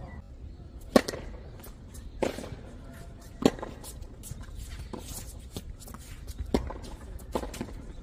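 Tennis ball struck by rackets and bouncing on a hard court during a rally: sharp pops, the loudest about a second in and again at roughly 2 and 3.5 seconds, then a few more near the end, with fainter clicks between them.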